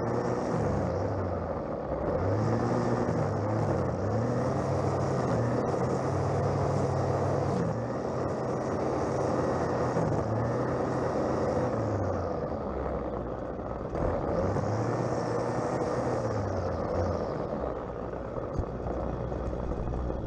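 String trimmer running under load as it cuts grass, its motor speed rising and falling every couple of seconds, with the hiss of the spinning line through the grass.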